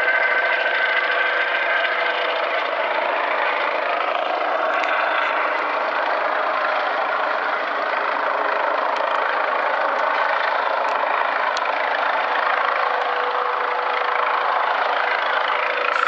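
Helicopter hovering at a distance: a steady drone of its engine and rotor, with a faint even tone running through it.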